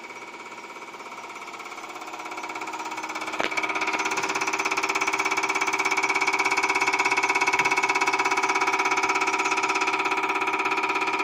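Common rail injector test bench running an injector test: a steady machine whine with a rapid, even pulsing of the injector firing. It grows louder about two to three seconds in, with one sharp click near three and a half seconds, then holds steady.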